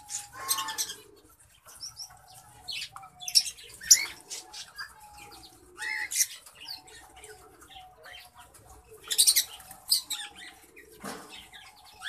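Cockatiels calling in short chirps and rising whistles, over and over, with several brief bursts of wing flapping.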